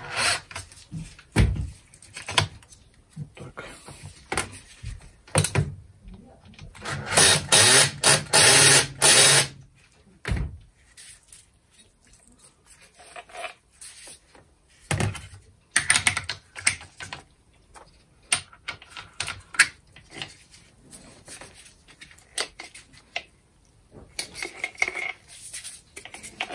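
Handling noises from an angle grinder and hand tools on a metal workbench: scattered clicks, knocks and clatter, with a loud, dense noisy stretch about seven to nine and a half seconds in.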